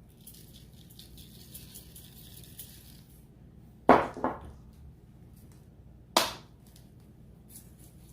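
Loud crunching bites into crisp food close to the microphone: a double crunch about four seconds in and another about two seconds later, with soft crackly mouth and food noises before them.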